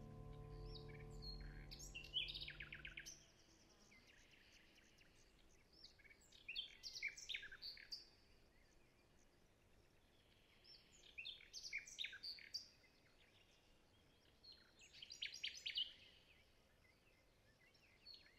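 Songbirds singing short bursts of quick chirps, a phrase every four to five seconds, over a faint outdoor background. Soft sustained music fades out about three seconds in.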